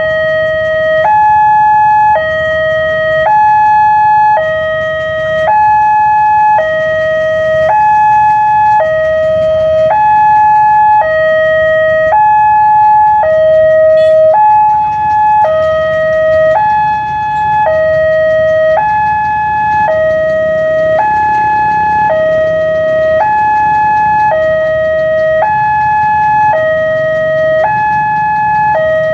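Railway level-crossing warning alarm sounding while the barrier is down: a two-tone electronic signal alternating between a lower and a higher tone about once a second, over a low steady rumble.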